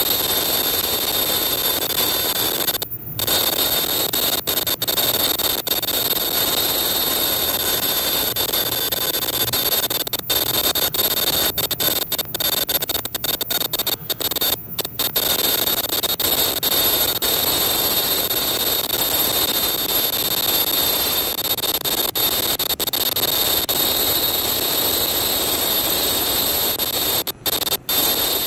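Semi-automatic tie-on face mask machine running: a steady mechanical whir and hiss with constant high-pitched whines.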